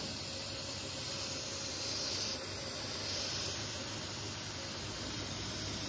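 Steady hiss of air being sucked in through a leaking, tape-patched vacuum hose on the intake manifold of a Lexus LS430's 4.3-litre V8 at idle. It eases briefly near the middle. This vacuum leak is the cause of the lean codes P0171 and P0174 on both banks.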